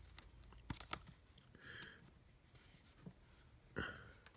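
Faint, scattered clicks and scrapes of a metal pry tool working along the seam of a Lenovo IdeaPad Flex 5 Chromebook's bottom case to release its clips. The loudest comes near the end.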